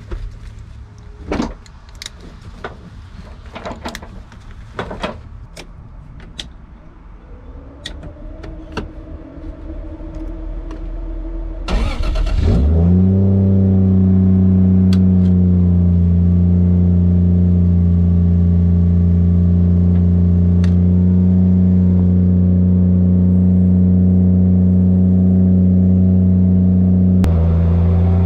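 Clicks and knocks as a racing harness is buckled, then a Nissan 240SX's swapped Toyota 1JZ straight-six is cranked and catches about twelve seconds in, settling into a steady idle. The engine speed rises near the end as the car pulls away.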